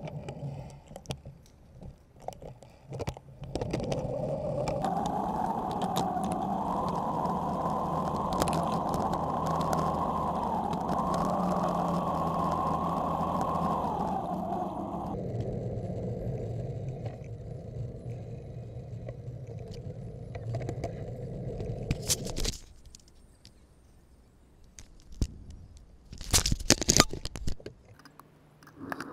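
Muffled rumble of a bicycle ride picked up by a camera mounted on the bike: tyres on the road and air noise on the microphone. It changes abruptly several times, and a few sharp clicks come near the end.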